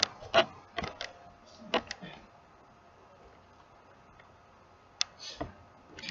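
A few small, sharp clicks and taps close to the microphone, several in the first two seconds and one about five seconds in, with soft breathy puffs after it and a quiet room in between.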